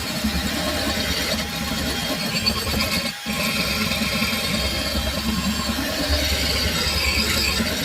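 Handheld power tool running steadily while abrading rust off an old iron spoon, with a brief dip about three seconds in.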